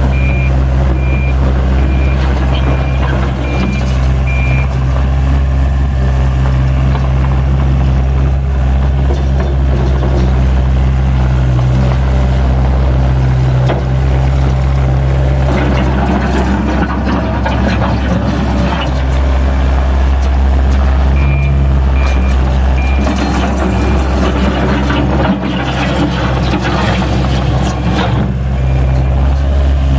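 Takeuchi TL130 skid steer's diesel engine running steadily as the machine is driven. Its reverse alarm beeps about once a second for the first four seconds or so, and again briefly around two-thirds of the way through. There are louder stretches of rattling in the middle and later on.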